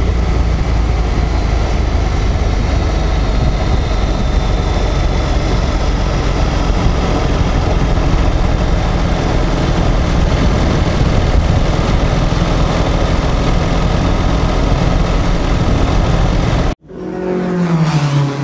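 Honda X-ADV 750's parallel-twin engine and transmission running steadily at road speed, picked up close by a microphone in the front fork tunnel, with wind and road noise. This is the transmission sound the owner is reporting to the Honda dealer. Near the end the sound cuts off abruptly and a tone falling in pitch comes in.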